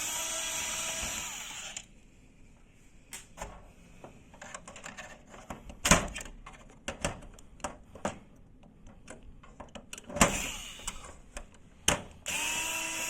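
Small electric screwdriver running in two short spells, one at the start and one near the end, driving out the screws that hold the printer's feed shaft. Between the spells there are scattered sharp clicks and knocks of screws and plastic parts being handled.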